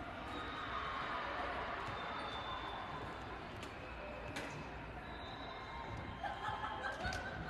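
Indistinct chatter of players and people in a large gym hall, with a few sharp knocks about four seconds in and a quick cluster of knocks near the end.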